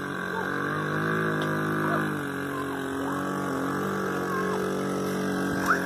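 Suzuki LT50 mini quad's small two-stroke single-cylinder engine running as the ATV is ridden, its pitch rising and falling with the throttle. A short sharp knock near the end.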